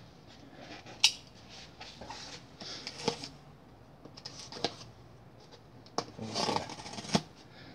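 A folding knife, a Spyderco Paramilitary 2, slitting the packing tape on a cardboard box, then the tape and cardboard flaps scraping and tearing as they are pulled open by hand. There is a sharp click about a second in and a few lighter clicks near the end.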